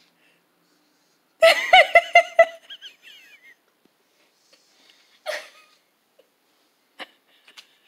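A person giggling: a quick, high-pitched run of about half a dozen laughs lasting around a second, starting about a second and a half in and trailing off into a squeaky giggle, with a soft breathy laugh a few seconds later.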